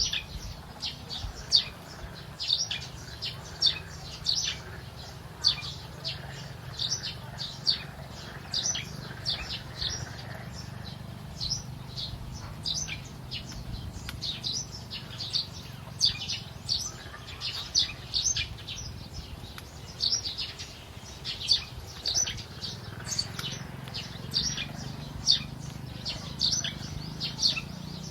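Small birds chirping: many short, high, downward-sliding chirps repeated a few times a second, over a low steady hum.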